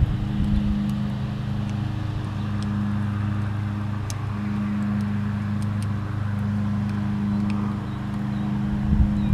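A steady low motor hum with a few even overtones, like an engine running at idle, holding level throughout.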